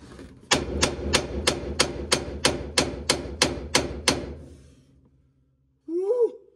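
About a dozen quick, even hammer blows, about three a second, on the steering wheel puller, trying to shock a steering wheel that is stuck fast on its splined steering shaft. Near the end there is a short grunt.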